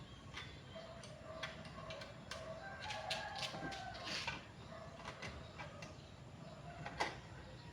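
A rooster crowing in a drawn-out call, with scattered light clicks and taps and one sharper click near the end.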